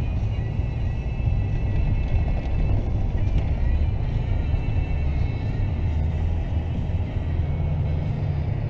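Steady low rumble of a Toyota 4x4 driving on a snow-covered road: engine and tyre noise heard from inside the cab.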